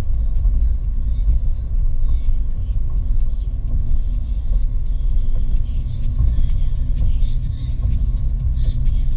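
A car driving at road speed: a steady low rumble of tyres and engine heard from inside the car.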